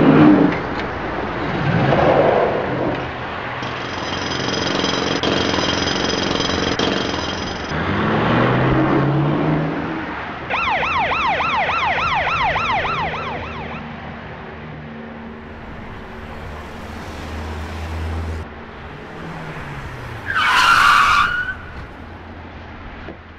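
Vehicle sound effects: engines revving up, then a police siren warbling rapidly for about three seconds midway, and a short tyre screech near the end.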